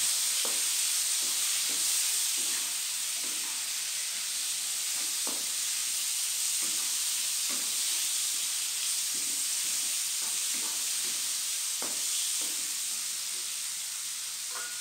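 Shrimp and carrot slices sizzling in oil in a nonstick wok, with a steady hiss. A wooden spatula stirs and scrapes through them, making short, irregular light knocks against the pan.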